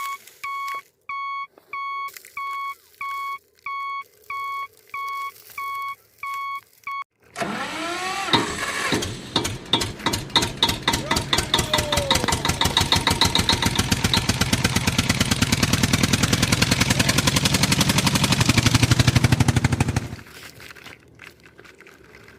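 A single-pitched electronic beep repeats about three times every two seconds; it stops and an engine starts up, its pitch first falling and then settling into a fast, even chugging that grows louder before it cuts off suddenly near the end.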